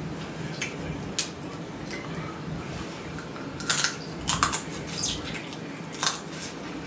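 Close-up eating sounds from a seafood boil: wet chewing and mouth smacks, with scattered short clicks and crackles, a cluster of them a little before the middle and another near the end.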